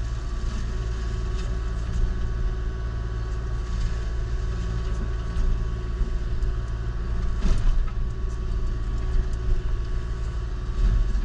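Kubota KX040-4 mini excavator's diesel engine and hydraulics running steadily under load, heard from inside the cab, with a steady whine over a deep rumble as it drives the Indeco forestry mulcher. A few sharp knocks cut through, the loudest about seven and a half seconds in.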